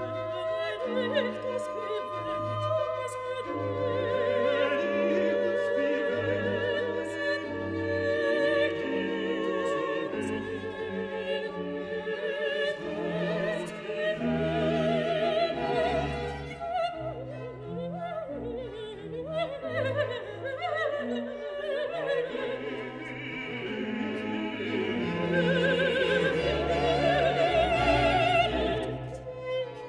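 Operatic singing with orchestral accompaniment: a voice holding long notes with a wide vibrato over strings and orchestra.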